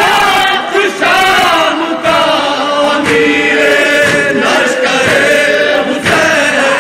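A group of men chanting an Urdu noha, a Shia lament, in unison and without instruments, with the lead reciter's voice on the microphone. The chant is loud and steady, with no pauses.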